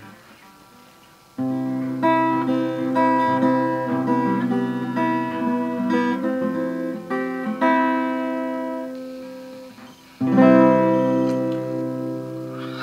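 Acoustic guitar playing the introduction to a song: chords struck and left to ring, beginning about a second and a half in, dying away toward ten seconds, then a fresh louder chord that rings on.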